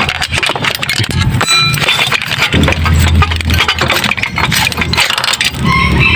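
Metal clinks and taps as the cylinder block is worked off a motorcycle engine, with one short metallic ring about a second and a half in. A low engine hum runs underneath, loudest about three seconds in.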